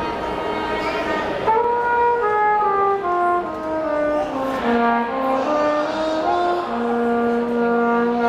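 A trumpet-family brass horn playing a slow melody of held notes, stepping downward over a few seconds and settling on a long low note near the end.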